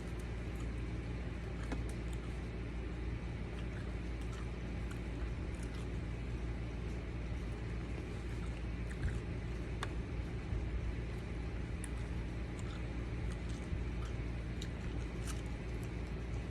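Steady low motor-like hum, with faint scattered clicks from a man chewing raw Thai bird's eye chili peppers.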